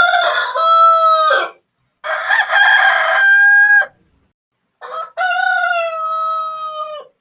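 Rooster crowing three times in a row. Each cock-a-doodle-doo ends in a long held note.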